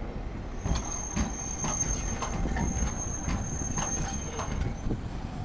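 Hankai Tramway streetcar rolling slowly past. Its wheels give a steady high squeal on the rails that stops near the end, over a low rumble, with sharp clacks about twice a second as the wheels run over the track.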